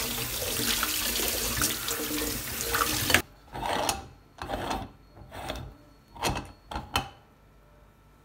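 Kitchen tap water splashing over a Bialetti Brikka moka pot in a stainless steel sink, cutting off abruptly about three seconds in. Then about six short handling sounds as the used aluminium pot is separated on the stovetop.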